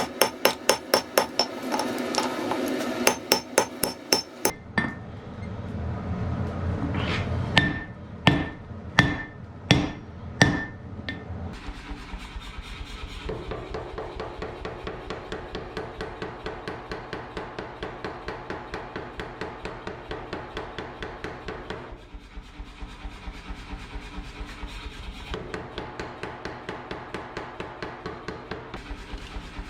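Hand hammer striking hot iron on an anvil: a quick run of light blows, then about half a dozen heavier, ringing blows a little under a second apart. After that, music with a steady clapping beat.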